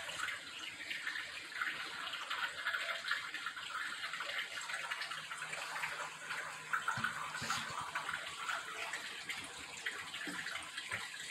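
Steady rushing background noise, like running water, with a few light knocks about seven seconds in.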